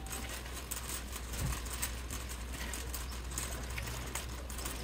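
Wire shopping cart being pushed along a store floor, its wheels and basket giving off irregular light clicks and rattles, over a steady low hum.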